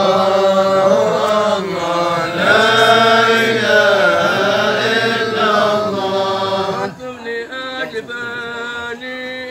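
A group of men chanting together in a Sufi hadra dhikr, with long held, wavering melodic phrases. About seven seconds in the full chorus drops away and one or two voices carry on more quietly.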